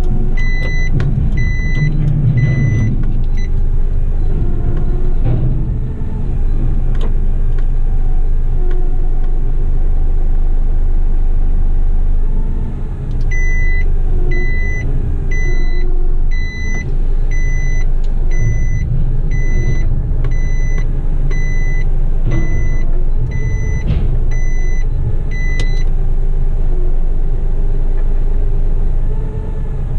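Isuzu garbage truck's diesel engine running in the cab, its load rising and falling while the front-lift arms work a bin. An electronic warning beeper sounds at about one and a half beeps a second at the start, stops, and sounds again for about twelve seconds from roughly the middle.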